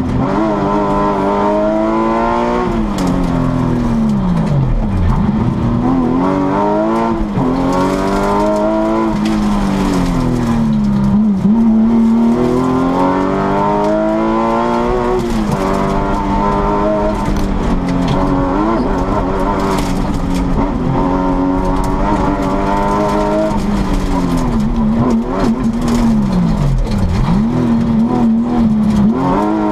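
Porsche 996 GT3's flat-six engine at full effort on a rally stage, heard from inside the cabin: the revs climb hard through the gears and drop away repeatedly as the driver lifts and brakes for corners.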